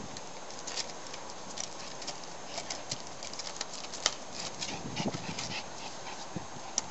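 Border terrier dogs making brief, low dog sounds amid many scattered sharp clicks.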